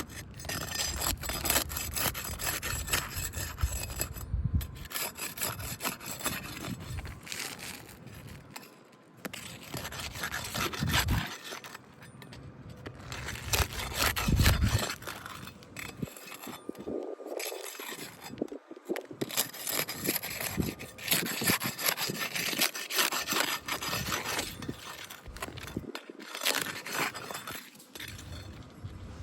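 Crowbar scraping and prying under roughly 20-year-old 3-tab asphalt shingles to free the roofing nails, in many irregular rubbing and scraping strokes.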